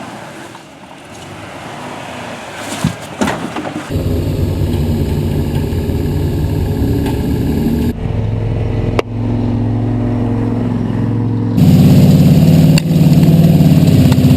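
Off-road 4x4 vehicle engines running and revving, heard in several short clips cut one after another. The first few seconds are quieter with a couple of knocks, the engine comes in about four seconds in, and it is loudest near the end.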